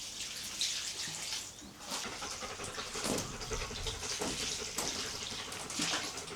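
Water running and splashing unevenly, in surges, with small clicks and knocks mixed in.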